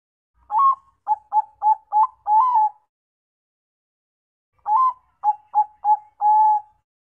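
Zebra dove (perkutut, Thai-bred 'Bangkok' song type) cooing: two song phrases about two seconds apart, each an opening coo, a quick run of short clipped notes, and a longer final coo.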